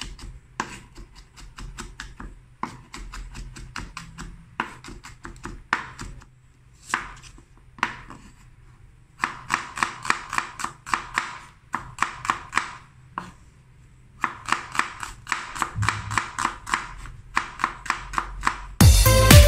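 Kitchen knife chopping garlic and then slicing a red onion on a wooden cutting board: quick runs of sharp taps, about four or five a second, broken by short pauses. Electronic music starts just before the end.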